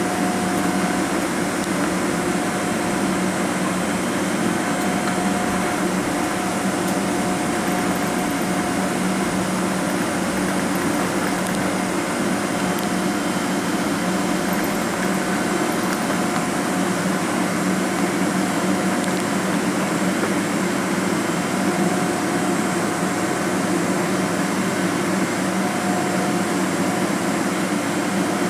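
Steady cabin noise inside a Boeing 777-200ER taxiing on the ground: the engines at idle thrust give an even hum under the hiss of the cabin air, with a faint steady whine that fades in and out.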